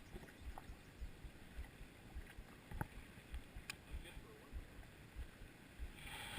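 Low, irregular buffeting of wind on the microphone, with a couple of faint clicks near the middle.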